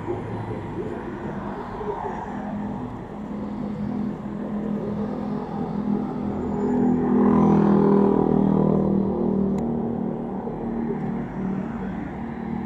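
Steady city road traffic on a multi-lane avenue. A large vehicle's engine comes in close about halfway through, loudest a little past the middle, then eases off.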